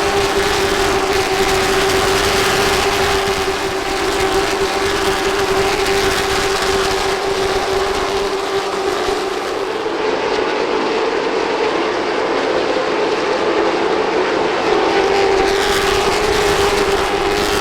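Race car engines running at speed on the track, a loud, steady drone that eases slightly about ten seconds in.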